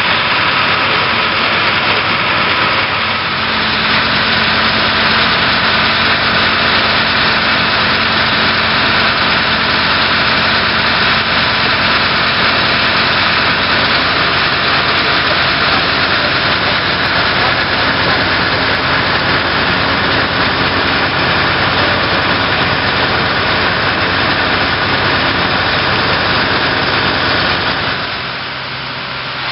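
Fire engine running steadily at the fireground, a loud constant engine drone under a rushing hiss, typical of the truck's pump feeding the hoses. It eases off near the end.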